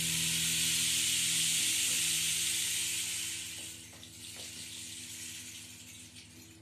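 Rain stick tipped upright: a rushing trickle of pebbles falling through the wooden tube, which thins out and fades after about three and a half seconds into a few faint last clicks, over a low steady hum.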